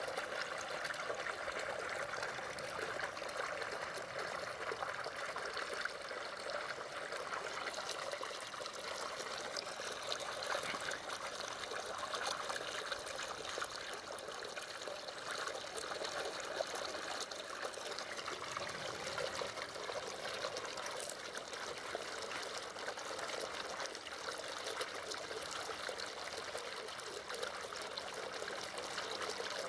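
Running water trickling steadily, an even splashing sound without breaks.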